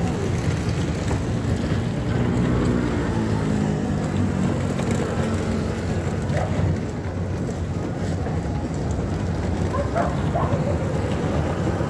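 Steady low rumble of a motor vehicle's engine, with wind noise on the microphone.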